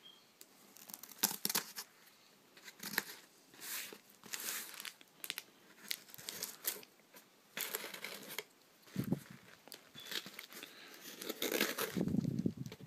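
A taped cardboard parcel being handled and opened: irregular short scrapes and rips of packing tape and cardboard, busier near the end.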